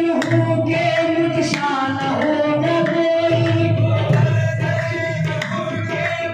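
Qawwali music: voices singing over long held notes, with tabla strikes keeping the beat.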